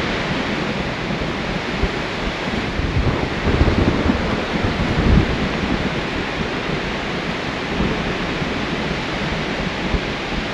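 Thunderstorm: steady rain, with low rumbles of thunder swelling between about three and five seconds in.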